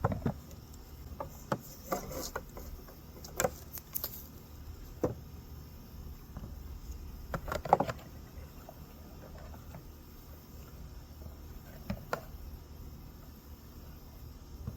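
Scattered light clicks and knocks from handling an electric chainsaw and its power cord as it is plugged in. A small cluster of knocks about halfway through is the loudest. The saw's motor is not running.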